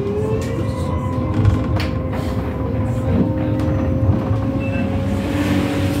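Switch Mobility MetroCity electric bus in motion: its drive motor whine rises in pitch during the first half second, then holds steady tones over a continuous low road rumble with a few knocks and rattles.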